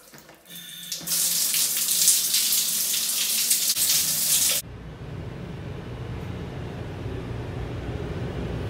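Shower running: a loud, steady hiss of water spray from about a second in. It cuts off suddenly just before five seconds in, and a low, steady rumble follows, heard from inside a car going through a car wash.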